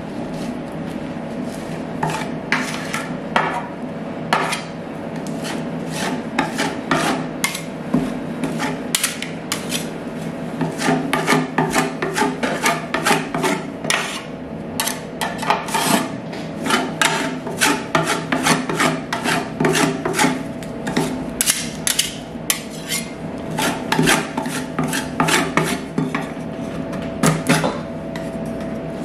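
Metal spatulas scraping and tapping on the stainless-steel cold plate of a rolled ice cream machine, spreading avocado ice cream thin, in quick strokes several a second. A steady hum runs underneath.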